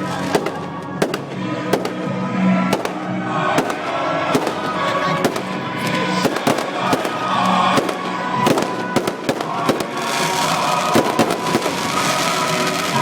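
Fireworks bursting in quick succession, many sharp bangs and crackles over music, with a denser crackling hiss from about ten seconds in.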